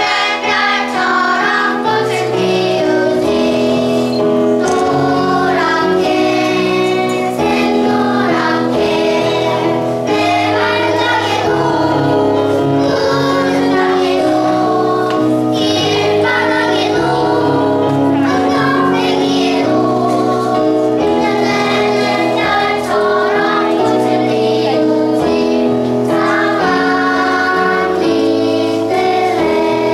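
A children's song with instrumental accompaniment: young voices singing together over a steady backing.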